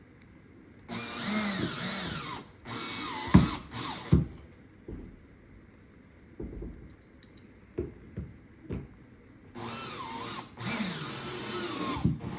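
Cordless drill driving the screws of a door strike plate, running in three short spells with its whine sliding up and down as the trigger is eased; a few sharp knocks and clicks come between the spells.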